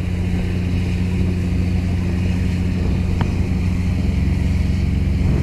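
Fishing boat's diesel engine running steadily with a low, even drone. There is a brief high tone about three seconds in.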